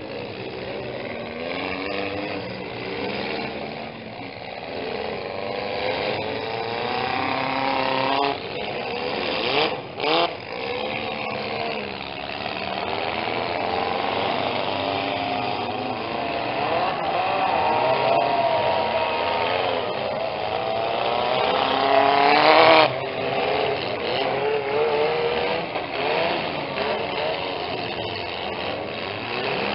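Several small demolition-derby cars' engines revving and straining at once, their pitches rising and falling, broken by sharp metal-on-metal crashes, a couple about ten seconds in and the loudest about 23 seconds in.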